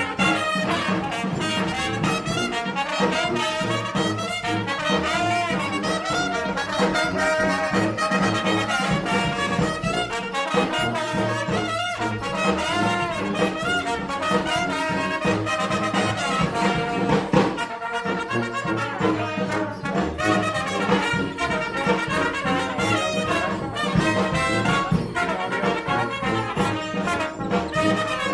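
Street brass band playing live, with trumpets and trombones sounding together and the music continuing without a break.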